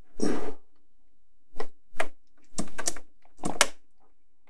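Close-miked computer keyboard keystrokes: about five separate clacks, some short and some drawn out, with a faint low hum between them.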